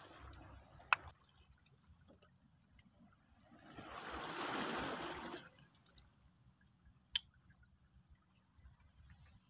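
Seawater washing and trickling among rocks, swelling into one brief rush for about two seconds in the middle, then falling away. Two sharp clicks, one about a second in and one near the end.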